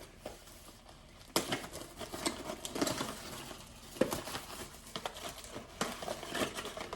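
Packaging of a carburetor rebuild kit being opened by hand: crinkling and rustling, with sharper crackles about a second and a half in and again at about four seconds.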